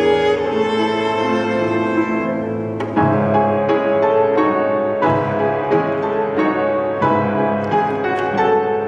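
Piano trio of violin, cello and grand piano playing live chamber music. Sustained bowed notes over the first few seconds give way, about three seconds in, to a steady pulse of accented chords.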